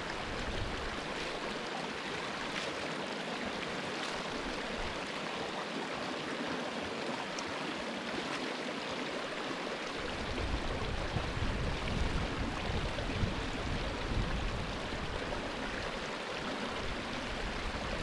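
Steady rush of a mountain stream flowing over rocks. A low rumble joins about halfway through.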